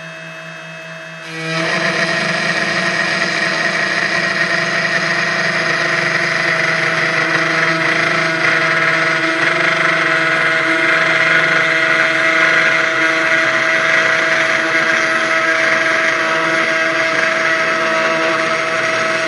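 CNC 1610 Pro desktop router's spindle whining steadily while a 3 mm end mill mills a workpiece in shallow 0.4 mm passes. The cutting noise jumps up sharply about a second and a half in and then runs steadily.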